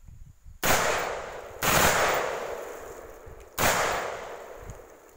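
Three single shots from an M4 rifle, the first two about a second apart and the third two seconds later, each followed by a long echo that dies away.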